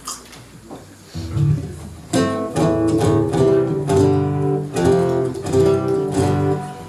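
Guitar being strummed and plucked: a low note about a second in, then ringing chords from about two seconds in.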